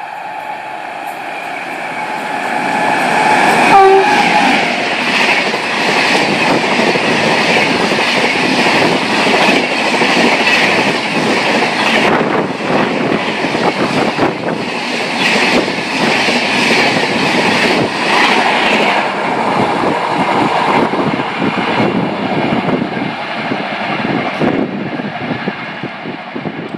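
A WAP-7 electric locomotive and its express train run through a station at speed. The horn sounds as it nears, with a loud peak about four seconds in. Then comes a long stretch of coaches rumbling and clattering rapidly over the rail joints, fading near the end as the last coach passes.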